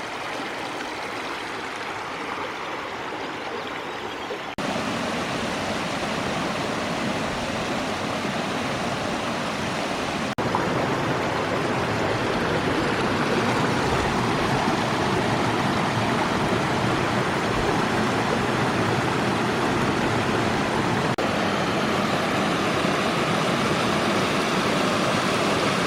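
Steady rushing and gurgling of a small flowing stream. The sound jumps louder abruptly about 4.5 seconds and 10 seconds in, as if heard from closer.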